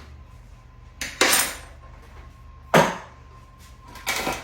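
A measuring spoon knocking against the mixing bowl three times, about a second and a half apart, as spoonfuls of cinnamon go into the cake batter.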